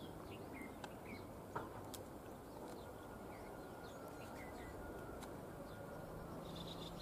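Small birds chirping in short repeated calls over a low steady rumble from a distant diesel locomotive approaching, with one sharp click about a second and a half in.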